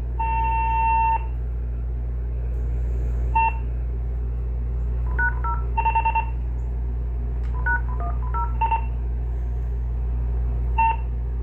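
Touch-tone keypad presses and answering-machine beeps over a phone line while a Uniden EXAI7980 digital answering machine is being worked by remote access. A beep of about a second comes first, then scattered short keypress tones and beeps, including a run of four quick beeps about 6 s in. A steady low hum runs underneath.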